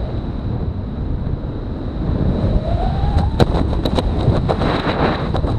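Wind buffeting the camera microphone under an open parachute canopy, a steady low rush, with several sharp clicks or flaps from a little past the middle.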